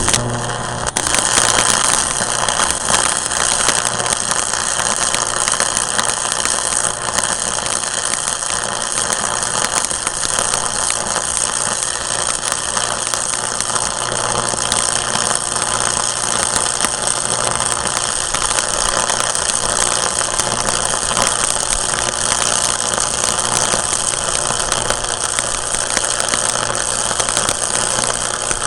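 Stick-welding arc crackling and sizzling steadily without a break, over a faint electrical hum.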